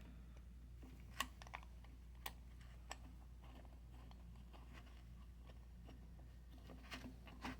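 A few faint, sharp clicks and taps, about a second in, around two and three seconds in and again near the end, from handling the caster wheel parts and an Allen wrench, over a low steady hum.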